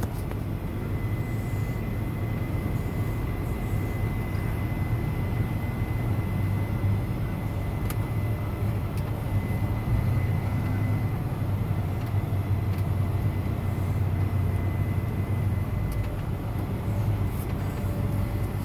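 John Deere 9420R tractor's diesel engine running steadily, heard from inside the cab as a low drone. A thin, steady high whine runs over it and fades out near the end.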